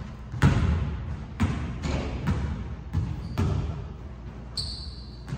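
Basketball bouncing on a hardwood gym floor: about half a dozen irregularly spaced thuds, each echoing in the hall. A short sneaker squeak comes near the end.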